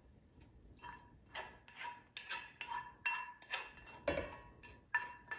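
Wooden spoon scraping sautéed ramps out of a frying pan into a stainless steel mixing bowl: about a dozen quick knocks and scrapes of spoon and pan against metal, each leaving a brief metallic ring.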